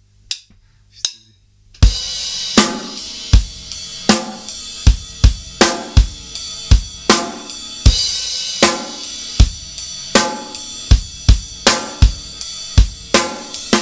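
Acoustic drum kit playing a punk-rock verse beat, the ride cymbal ringing steadily over bass drum and snare strokes. It starts about two seconds in, after a few quiet stick ticks.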